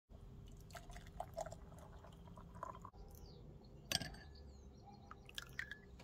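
Syrup trickling and dripping from a saucepan into a glass jar. After a cut, a spoon in a porcelain bowl of syrup clinks against the bowl, sharpest about four seconds in, with a few lighter clicks near the end.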